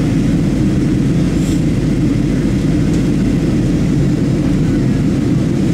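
Steady low roar inside the passenger cabin of a Boeing 737-700: the CFM56-7B engines and the airflow over the fuselage in the climb after takeoff.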